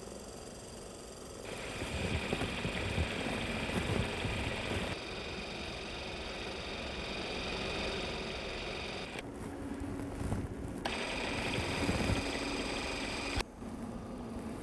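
Super 8 film mechanism running, a steady mechanical whir with a high hum, changing abruptly several times.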